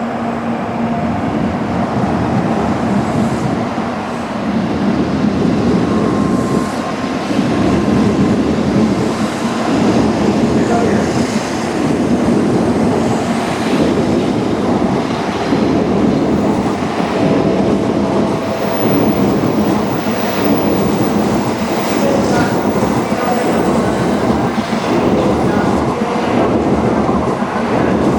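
Tokaido Shinkansen train running alongside the platform: a loud, steady rumble of wheels on rail that swells about four seconds in and holds.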